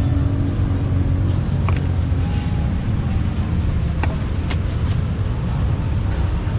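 Steady low rumble of street traffic, with a few light clicks of a scoop against plastic tubs and a bag as toppings are spooned in.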